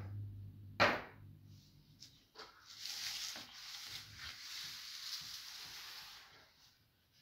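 A sharp knock about a second in, then a few light taps and several seconds of rustling as a large sheet of paper is slid across a wooden work board.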